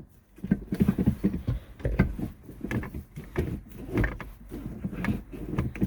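Manual gear lever of a VW MK4 Golf GTI being worked through the gears with a newly fitted carbon fibre shift knob, a rapid, irregular run of clunks and clicks with low thuds.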